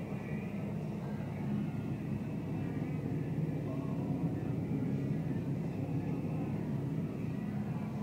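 Fendt 718 tractor's diesel engine running steadily, heard from inside the cab as a low, even drone while the tractor pulls a Pöttinger 1252C rotary rake.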